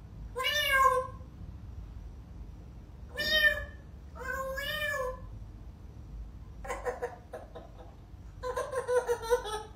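African grey parrot imitating a cat's meow three times, then near the end a rapid run of short pitched notes imitating a baby's laugh.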